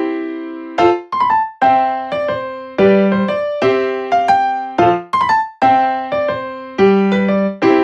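Keyboard music in a piano sound: chords struck about once a second, each ringing and fading before the next, in a repeating pattern.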